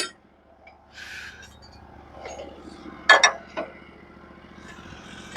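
Light metallic clinks and taps over a low steady hum, with one sharper clink about three seconds in.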